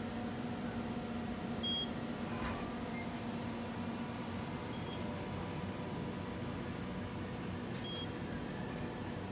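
Mitutoyo Bright Apex A710 coordinate measuring machine on an automatic measuring run: short high beeps about every three seconds as the touch probe registers each point, over a steady low hum.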